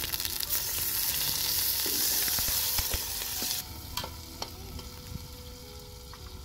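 Freshly added diced tomatoes and onions sizzling in hot oil in a metal pot, stirred with a slotted metal spoon. The loud sizzle cuts off abruptly about three and a half seconds in, leaving a fainter sizzle with a few light clicks.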